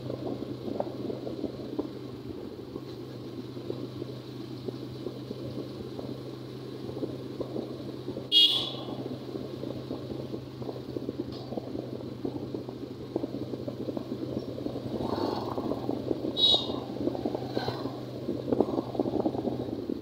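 Steady running noise of a vehicle moving along a road, with a low steady hum under it. A short horn beep sounds about eight seconds in, and a few more short beeps come around sixteen seconds in.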